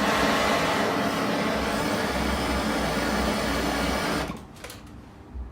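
Handheld gas soldering torch burning with a steady hiss as it heats a copper pipe fitting, then stopping abruptly about four seconds in.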